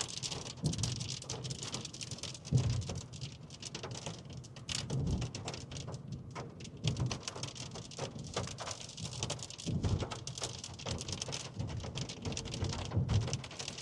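Rain hitting a car's roof and windshield: a dense patter of drops, with a few scattered low thuds.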